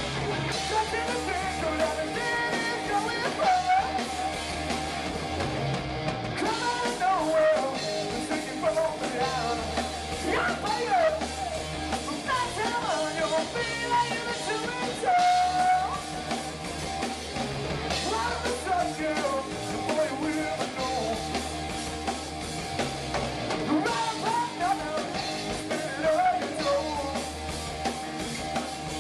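Live rock band playing: electric guitars and drum kit, with lead vocals sung over them.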